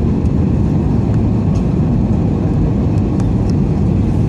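Steady cabin noise inside an Airbus A320 descending on approach: a deep, even rumble of the engines and rushing air, with a faint steady hum above it.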